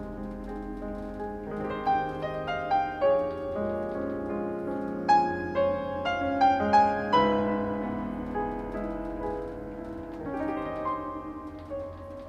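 Background piano music: a slow melody over held chords, with single struck notes standing out between about two and seven seconds in.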